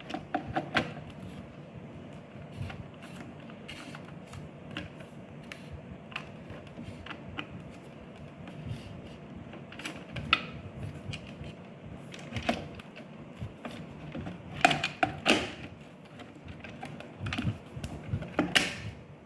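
Irregular clicks and knocks of plastic and metal parts as a smart lock's back panel is pushed onto the door and its spindles and cable are worked into place, coming in small clusters with a few louder knocks.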